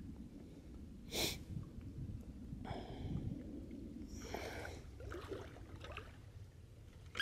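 A person sniffing and breathing out several times: short breathy noises, the sharpest about a second in, over a low steady rumble.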